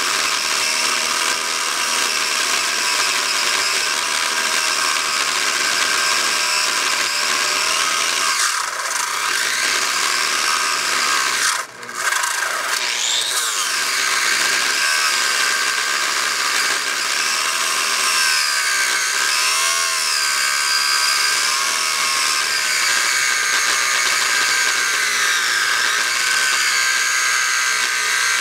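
Pressure washer jet spraying a boat hull: a steady hiss with a wavering whine, cutting out briefly about twelve seconds in.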